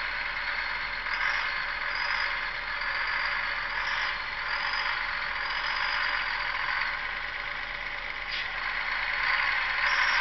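The Detroit Diesel 6-71 two-stroke engine of a 1954 Euclid rock truck running under light load as the loaded truck creeps through a turn. A steady engine din with a thin high whine that wavers up and down.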